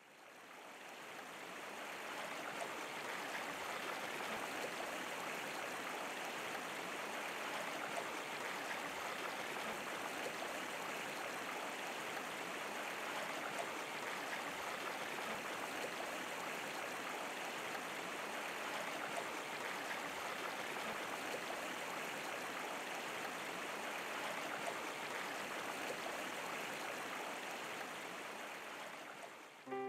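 Steady rush of flowing stream water, fading in over the first couple of seconds and fading out near the end.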